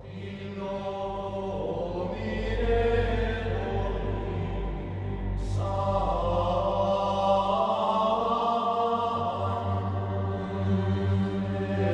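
Background music of slow choral chanting in long held notes, with a new chord entering about halfway through.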